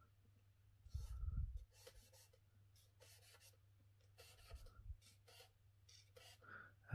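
Faint charcoal scratching on paper in many short, quick shading strokes, with a soft low bump about a second in.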